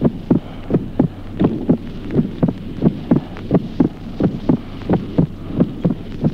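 Recorded heart sounds through a stethoscope: a steady train of first and second heart sounds, about three thuds a second, over a low hum. The second heart sound splits into two parts only during inspiration, the normal physiological splitting.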